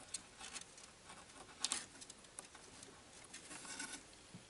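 Faint scratching and a scatter of small clicks from a wooden toothpick working grease onto a metal pivot pin inside a cassette deck chassis. The sharpest click comes about one and a half seconds in, and a few more follow near the end.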